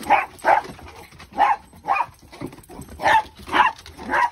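A dog barking in play during a chase, a run of short loud barks about two a second.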